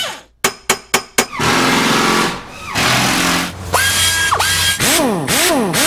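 A few sharp clicks, then a power drill's motor running and revving up and down several times near the end, its pitch rising and falling with each pull of the trigger.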